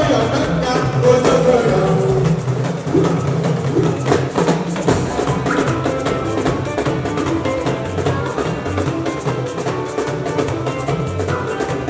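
Band music with drums and percussion keeping a steady groove, with singing over it.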